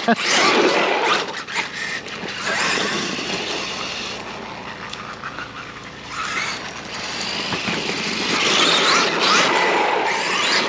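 Arrma Kraton 8S electric RC truck driving at full 8S power, its motor whining and metal-on-metal gears running, rising and falling in pitch as the throttle changes. It grows fainter about halfway through, then louder again near the end.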